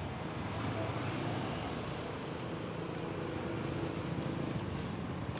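Steady road traffic noise of a busy city street: a low, even rumble of passing cars.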